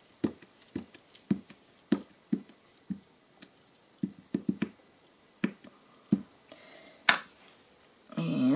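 A plastic-cased ink pad patted repeatedly against a rubber stamp on an acrylic block to ink it, a series of light taps about two a second, some in quick clusters. A sharper click comes near the end.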